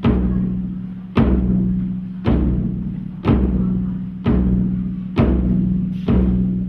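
Large drum struck slowly and evenly, about once a second, each stroke ringing on at a low pitch and fading before the next.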